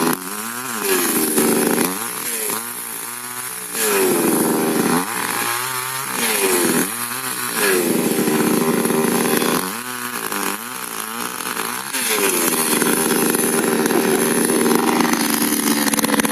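Two-stroke chainsaw engine running at high revs, the throttle let off and opened again several times so the engine note drops and climbs back, then held at high revs steadily over the last few seconds.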